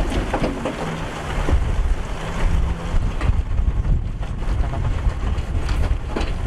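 Heavy diesel earthmoving machinery running, with scattered metallic clanks and knocks over a deep rumble. Wind is buffeting the microphone.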